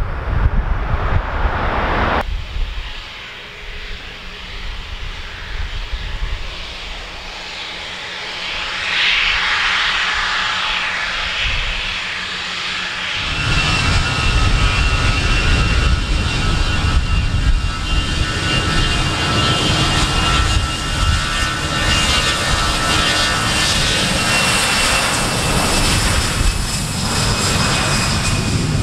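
Airbus A320's twin jet engines at takeoff thrust during the takeoff roll, growing louder as the aircraft nears. From about halfway on, a loud steady jet roar carries a high fan whine that slides slowly down in pitch as it passes. Wind rumbles on the microphone at the start.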